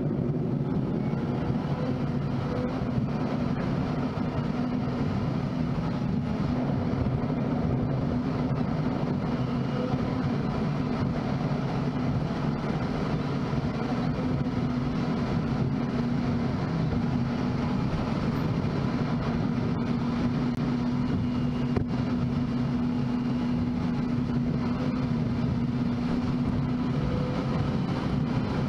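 Steady drone of a car driving at road speed, engine and tyre noise heard from inside the cabin, with a constant low hum.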